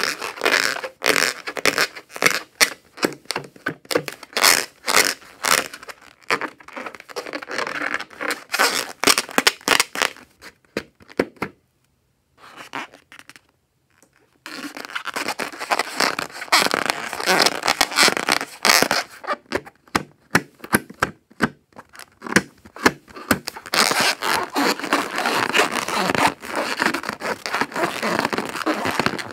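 Hands squeezing and rubbing a filled rubber balloon: a fast, dense run of rubbery squeaks, scrapes and crackles, stopping for about three seconds near the middle.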